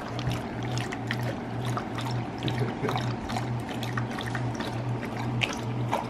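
Two Siberian huskies lapping water from a pet drinking fountain: quick, irregular wet laps and splashes. Background music with an even low beat about twice a second runs underneath.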